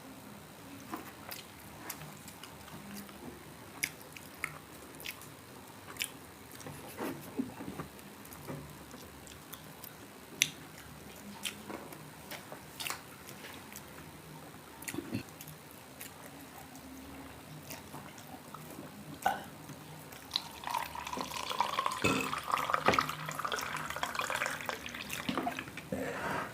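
Close-miked eating of crispy pork belly: scattered sharp crunches and mouth clicks with wet chewing. Near the end a louder, wavering high-pitched sound comes in over the eating.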